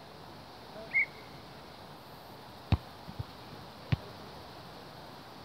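Volleyball being struck by players' hands and forearms during a rally: two sharp slaps about a second apart, the first near the middle, with a couple of faint taps between them. A short, high chirp sounds about a second in.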